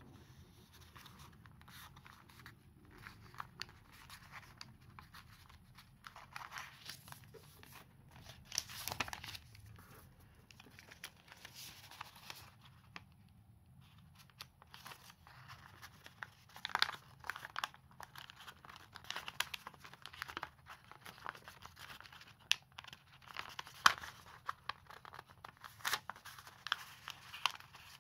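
A sheet of origami paper being folded and creased by hand: soft rustling and crinkling, with sharp crackles that become louder and more frequent in the second half.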